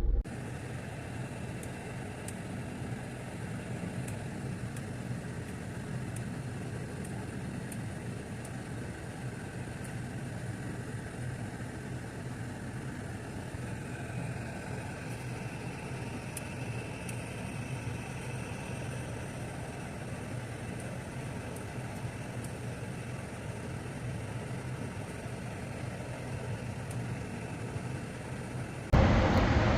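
Steady low hum of a car engine idling, with no distinct events; the sound gets suddenly louder near the end.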